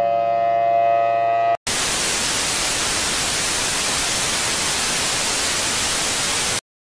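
Steady droning tone of several pitches cuts off about a second and a half in. Loud even broadcast static follows for about five seconds, then stops abruptly: the sign of a lost or cut transmission signal.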